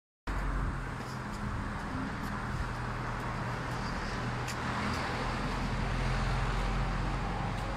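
Street traffic: a motor vehicle's engine running steadily amid road noise, growing a little louder in the second half.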